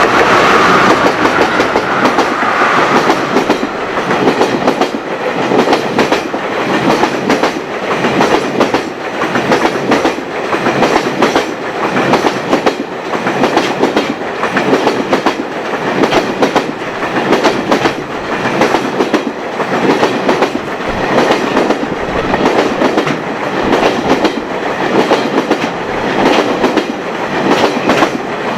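Freight train wagons passing over rail joints: a steady run of rhythmic clickety-clack as wheel after wheel strikes the joints. A higher tone at the start fades out about three seconds in.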